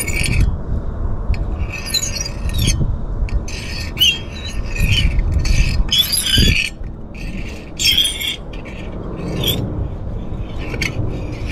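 Bits of scrap metal scraped and rubbed against each other in short strokes, rasping with high squeals, about half a dozen times, over a steady low rumble.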